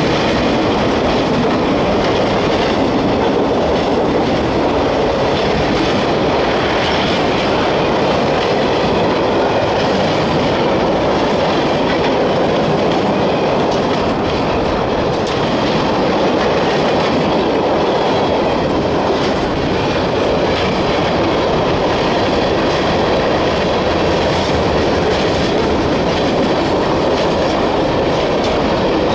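Long freight train of mixed cars rolling past at track speed: a loud, steady rumble of steel wheels on rail, with the clickety-clack of wheels passing over rail joints.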